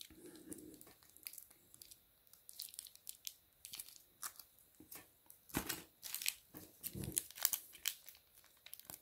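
Plastic sauce sachet crinkling and tearing as it is squeezed over chips, with rustling of paper food wrapping: a run of small crackles, densest and loudest about six to seven seconds in.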